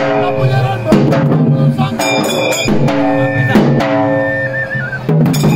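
Large dhol drums beaten in a Dhangari gaja dance rhythm, with held melodic notes sounding over the drumming that change pitch every second or so.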